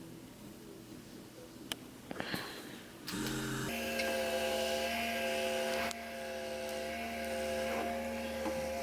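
A few faint clicks, then about three seconds in an electric motor starts up and hums steadily at several held pitches.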